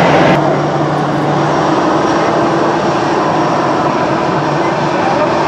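Jet engines of a Boeing 747SP at low taxi thrust: a steady engine rumble with a low hum. The higher hiss drops away about a third of a second in.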